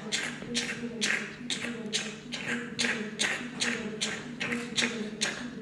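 A rhythmic beat of sharp, hissing hits, about two a second, over a low steady drone, played as a performance soundtrack.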